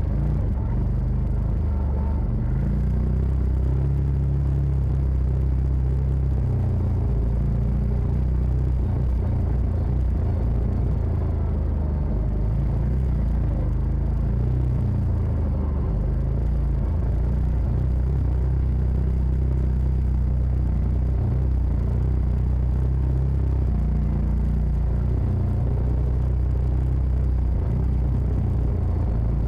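A CF Moto side-by-side's engine running steadily on a trail. Its pitch rises and falls every few seconds as the throttle changes, over a low rumble.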